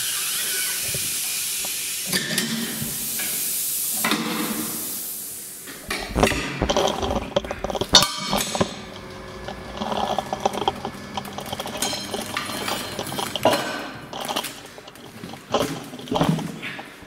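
Compressed air hissing in two long spells that die away about five seconds in, followed by irregular metal clanks, knocks and scraping as a car wheel is handled and worked on a tyre-changing machine.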